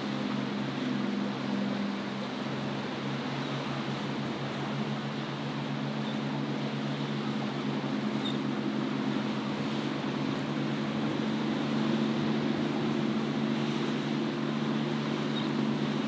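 Steady engine drone of a large fishing party boat running through rough water, the hum growing slightly louder in the second half as it passes close, over a constant wash of wind and breaking waves.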